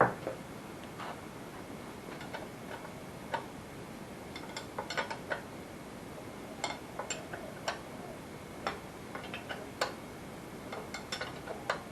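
Socket ratchet clicking in short, irregular runs while tightening the carburettor's mounting nuts on a Holden 173 six-cylinder engine.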